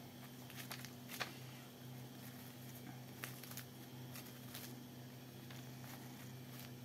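Faint crinkling of plastic stretch film and soft squishing as hands roll and press spiced minced-meat sausage mixture into a log, with scattered sharper crackles, over a steady low hum.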